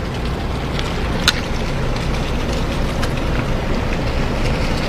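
Steady rumble of car and lorry engines idling in a stalled line of traffic, mixed with wind on the microphone; a single short click about a second in.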